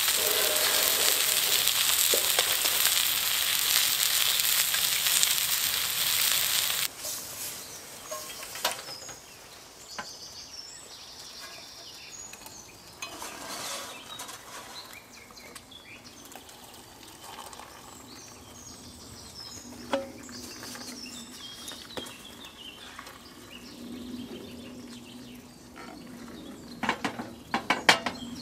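Eggs frying in a cast-iron skillet over a campfire, a loud steady sizzle that cuts off suddenly about seven seconds in. Then quieter sounds of hot water poured from a metal kettle into an enamel mug, and a quick run of metal clinks near the end as the kettle is set back on a gas stove.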